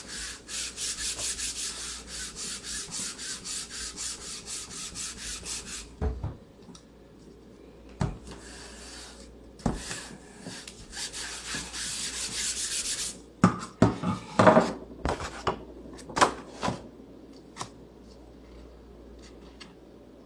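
Paper being rubbed onto an inked aluminum-foil lithography plate with a handheld round baren: a rapid, scratchy back-and-forth rubbing at about five strokes a second. It stops about six seconds in, returns in shorter spells, then gives way to a few louder knocks and clatters.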